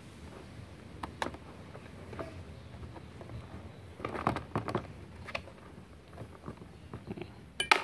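Hands handling the plastic shell and headgear of an auto-darkening welding helmet while working it open to reach the battery. Scattered light plastic clicks and knocks, with a cluster about four seconds in and a sharp double click near the end.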